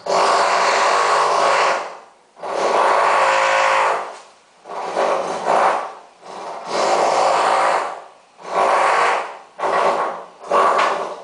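Power tool grinding metal on the other side of a bathroom wall, in about seven bursts of one to two seconds each with short pauses between them.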